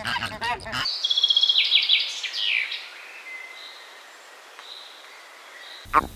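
Small bird chirping: quick high-pitched chirps and trills for about two seconds, then fainter, thinner calls over a light hiss. A lower, harsher animal call ends about a second in, and another loud animal call starts right at the end.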